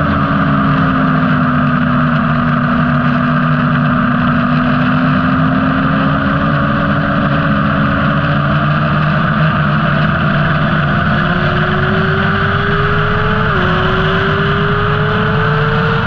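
A motorcycle engine at speed on a race track. Its note sags slightly through a corner, then rises steadily under acceleration, drops once at an upshift about 13 seconds in, and climbs again. A heavy rush of wind runs under it throughout.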